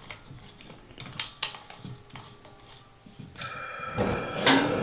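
A few small metallic clinks as a propane cylinder valve is handled, then about three and a half seconds in a steady hiss of propane starting to flow to a burner, joined near the end by a low rumble.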